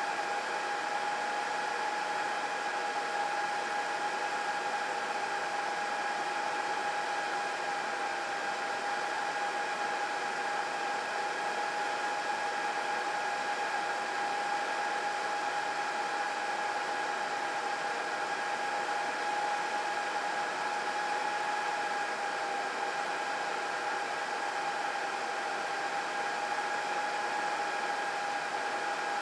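Server room ambience: many cooling fans running steadily as an even rushing hiss, with a constant whine in it.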